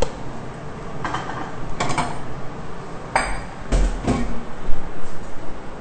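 Spatula scraping and knocking against a stainless-steel Thermomix mixing bowl, then the bowl being handled: a few scattered metallic clanks and scrapes, with a heavier thud about four seconds in.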